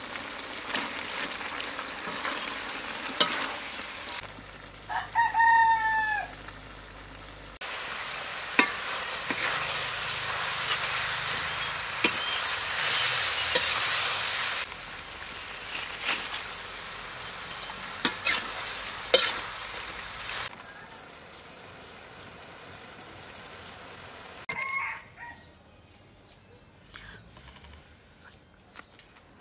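Meat and green beans sizzling as they are stir-fried in a wok, with the spatula knocking and scraping on the metal now and then. A rooster crows once about five seconds in, and a short second call comes near the end.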